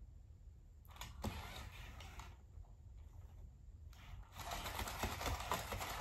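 Sony aibo robot dog's leg motors whirring and its paws clicking on a wooden floor as it starts to walk. The sound is faint at first, then from about four seconds in becomes a quick, steady run of small clicks over the motor noise, growing louder.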